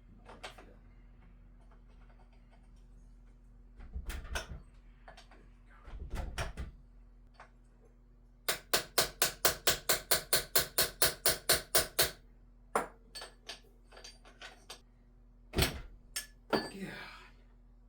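Hand-tool work on a transfer case's speedometer-gear housing as it is worked loose: two dull thuds, then a quick run of about fifteen sharp, even metallic clicks at about four a second, then a few scattered clicks.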